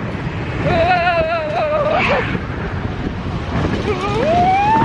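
People's voices crying out over a steady rumbling background. About a second in there is a long wavering cry, and near the end a whoop that rises and then falls.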